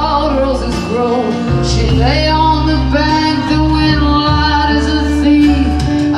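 Live band playing a slow ballad. A man sings lead at the microphone over acoustic guitar, electric guitar, bass and drums.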